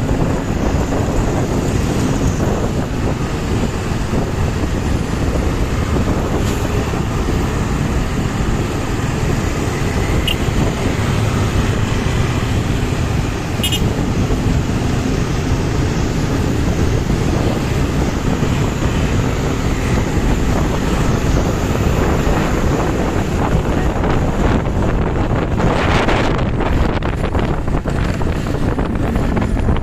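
Steady road and traffic noise from a moving vehicle, with wind buffeting the microphone. A short hissing swell comes near the end.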